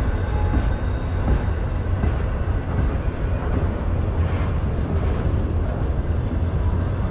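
Freight train's autorack cars rolling past close by: steel wheels running on the rails in a steady low rumble.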